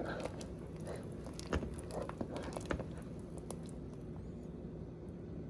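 A spoon stirring soup in a pot, with soft wet clicks and taps against the pot, mostly in the first three seconds. A steady low hum runs underneath.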